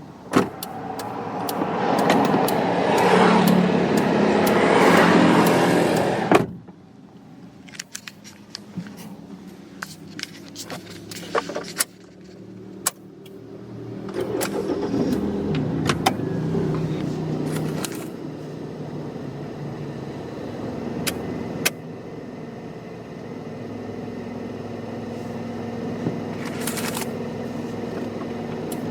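Car door open with outside noise coming in, then slammed shut about six seconds in, cutting the noise off sharply. Clicks and key jangling inside the car follow, and about halfway through the engine starts and keeps running steadily at idle.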